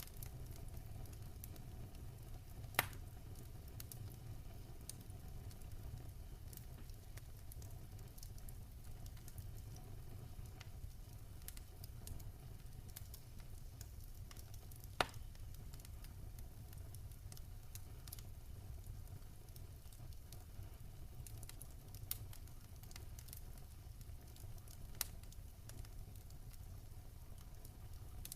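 Wood fire crackling, with a low steady rumble of the flames, scattered small crackles and a few sharp pops of burning wood, four of them standing out.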